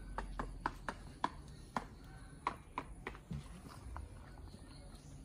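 Chickens pecking at feed on bare ground: a run of sharp, irregular taps, two or three a second, thinning out after about three seconds.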